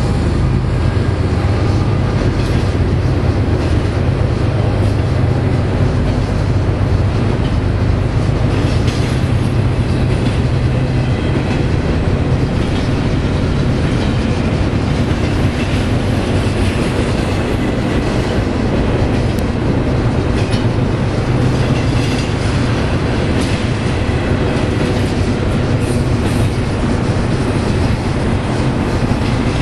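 Double-stack container well cars of a BNSF intermodal freight train rolling past close by: a steady, loud noise of steel wheels running on the rails.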